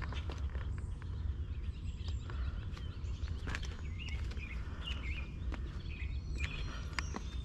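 Songbirds singing in short warbling phrases, repeated every second or two, over a steady low rumble, with scattered sharp clicks.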